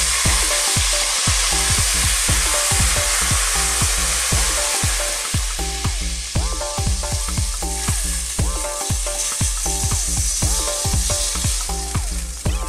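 Hot oil and butter sizzling and spitting as cold water is poured into a pot of browned chicken legs, with water splashing in as it pours. The sizzle is strongest at first and eases a little over the second half as the water cools the fat.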